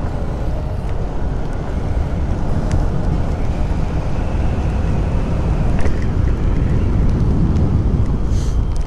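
Motorcycle riding at speed on an open road: a steady rush of wind over the microphone with the engine running underneath.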